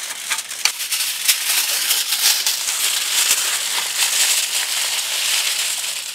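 Aluminium foil crinkling and crackling steadily as hands fold and press it around a large fish.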